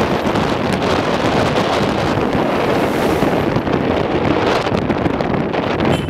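Wind on the microphone and road noise from a car driving through city traffic, a steady loud noise.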